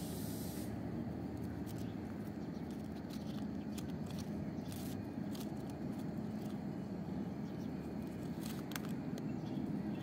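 Alexandrine parakeet feeding on a guava: faint, short scratchy crunches of its beak at the fruit every second or so, over a steady low outdoor rumble.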